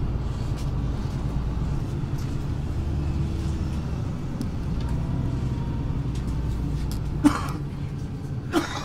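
City bus under way, heard from inside the cabin: a steady low engine and road rumble. Twice near the end, a short sharp knock cuts through it.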